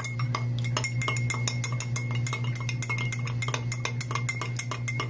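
A metal spoon clinking rapidly against a small drinking glass while beating a raw egg, about six light taps a second, over a steady low hum.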